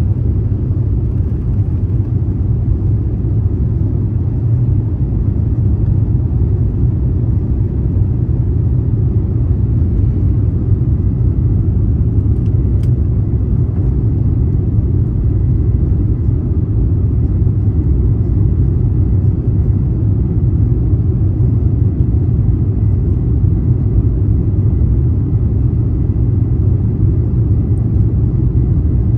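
Steady low rumble inside the cabin of an Airbus A350-900, the engines and airflow heard from a passenger seat, with a faint click about 13 seconds in.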